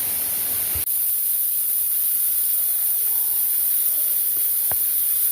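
Waterfall tumbling down rock steps: a steady hiss of falling water, with a brief break a little under a second in.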